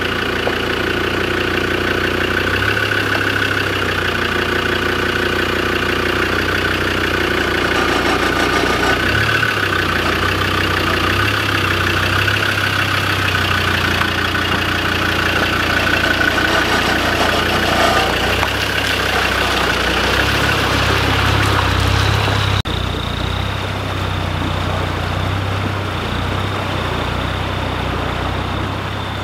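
Land Rover Defender 90's engine running slowly at low revs as it crawls through a rocky stream crossing, over the steady rush of flowing water. The sound changes abruptly near the end.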